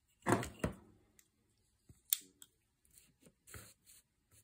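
A steel ruler is set down on paper over a cutting mat, with two sharp knocks in the first second. A few light clicks and a short snip follow as small craft scissors are handled against the paper.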